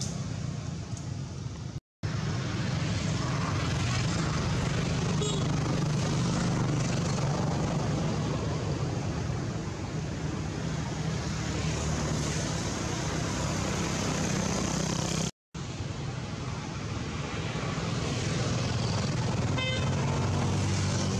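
Steady low rumbling outdoor background noise that breaks off into silence twice for a moment.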